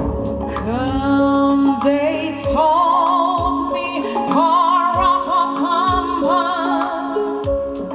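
Choir singing with instrumental accompaniment. Women's voices slide up into long held notes with wide vibrato, over sustained backing chords and light percussion ticks.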